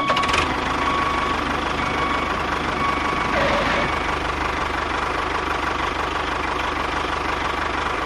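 An engine running steadily at an even idle, with a rapid, regular knock.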